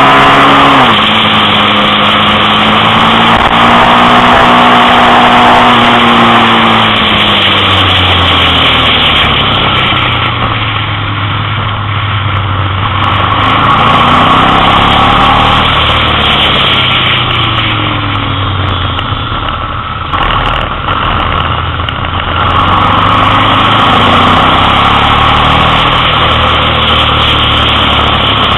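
Motorcycle engine running at road speed through bends, heard from on the bike with wind rushing over the microphone; the engine note drops and climbs back several times as the rider rolls off and accelerates out of the curves.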